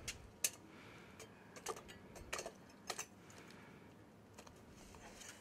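Faint, scattered metal clicks and taps as long steel lifting tongs are lowered into a crucible in the furnace and close around it. There are about half a dozen light clinks, mostly in the first three seconds.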